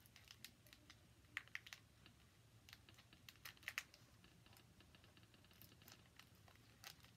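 Faint, irregular clicks and taps of plastic trading-card packaging being handled as it is about to be cut open, a few sharper ones about one and a half and almost four seconds in.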